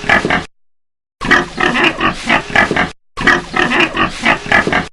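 Pig grunting in quick runs of grunts, about five a second: one run ends about half a second in, then two longer runs follow, each close to two seconds.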